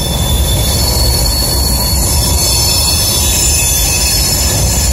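Empty covered hopper cars of a freight train rolling past close by: a steady rumble of wheels on rail with a thin, steady high squeal from the wheels over it.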